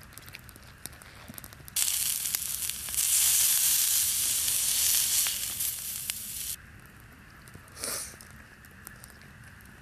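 Well-marbled meat frying in its own rendered fat in a hot pan: a loud sizzle that starts abruptly about two seconds in, swells a second later, and cuts off sharply near seven seconds, followed by a brief hiss about a second after.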